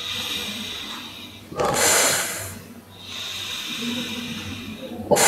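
A man breathing hard, blowing two long hissing breaths out into the mouthpiece of a Mares Horizon semi-closed rebreather, each followed by a sharp sniff in through the nose. He is pressurizing the breathing loop to make the overpressure valve vent.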